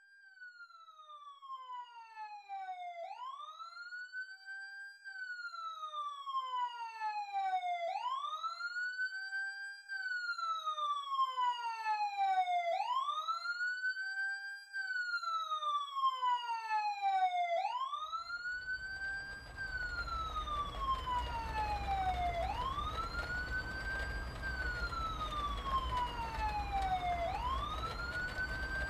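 Emergency vehicle siren wailing, fading in. Each cycle rises quickly and falls slowly over about five seconds. About two-thirds of the way through, a steady low rumble and hiss joins it.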